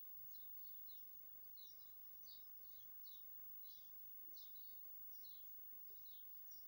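Near silence with faint bird chirping: short, high, falling chirps repeating every half second or so.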